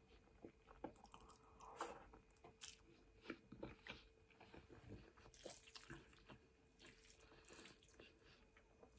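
Faint chewing of a mouthful of spaghetti: soft, scattered wet clicks and smacks of the mouth.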